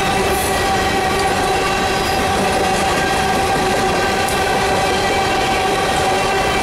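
Empty coal hopper cars of a freight train rolling past: a steady rumble and clatter of steel wheels on the rails, with a steady ringing note over it.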